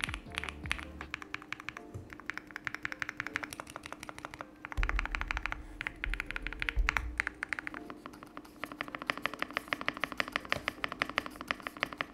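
Fast typing on a GMK67 custom mechanical keyboard with lubed TTK White switches and GMK-clone keycaps: quick bursts of crisp keystrokes with short pauses between them, over background music. A low thumping joins for about two seconds midway.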